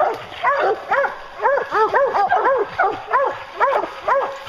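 Several bear hounds barking steadily at the foot of a tree, a quick overlapping run of barks about three or four a second. It is their tree bark, the sign that the black bear is treed.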